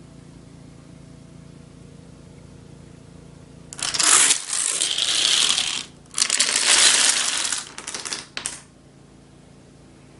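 Dominoes toppling in a chain reaction: a loud, dense, rapid clatter of pieces knocking into one another. It starts about four seconds in, dips briefly halfway, runs on in a second burst and stops just before nine seconds in.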